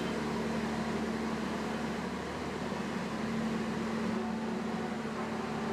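Steady low mechanical hum with one held low tone, from a train at the station.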